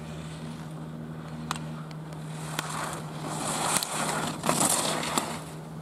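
Ski edges scraping and hissing on hard-packed race snow as a giant slalom skier carves past, swelling from about halfway and fading near the end, with a few sharp clicks, over a steady low hum.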